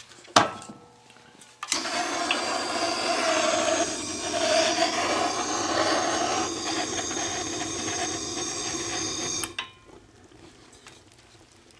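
Handheld gas torch burning steadily for about eight seconds, starting abruptly and cutting off sharply, as it lights kindling in a wood furnace firebox. A single sharp click comes shortly before the torch starts.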